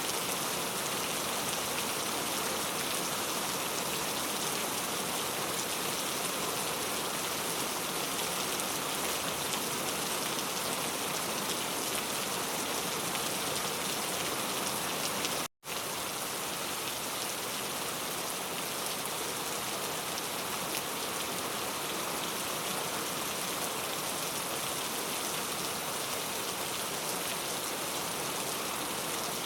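Heavy rain falling steadily, a dense even hiss of countless drops on surfaces. It cuts out to silence for a split second about halfway through, then carries on unchanged.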